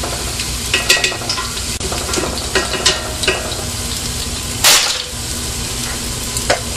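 Diced bacon, onion and minced garlic sizzling in a pot over medium heat, with a spoon clicking and scraping against the pot several times during the first half. One louder, short noise comes about five seconds in.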